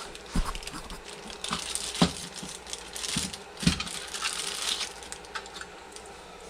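Small hard parts being handled on a workbench: a few knocks and clicks, with a crinkling rustle in the middle.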